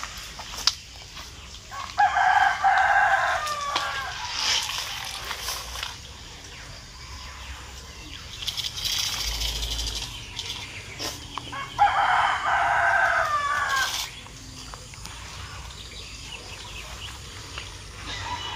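A rooster crowing twice, each crow about two seconds long with a falling end, roughly ten seconds apart.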